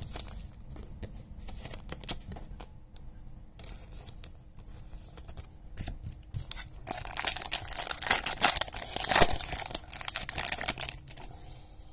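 A baseball card pack's wrapper being torn open and crinkled, with scattered light rustling and clicks at first and a dense stretch of tearing and crinkling from about seven seconds in until near the end.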